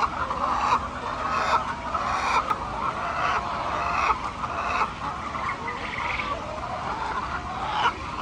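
A flock of hens clucking, many short calls overlapping without pause.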